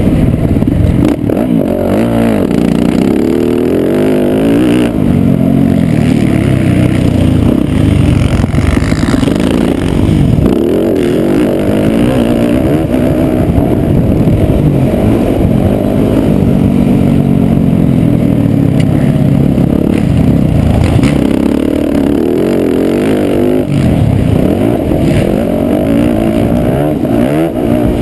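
Dirt bike engine revving hard and falling off again and again as the bike is ridden around a motocross track, heard loud and close from an onboard camera.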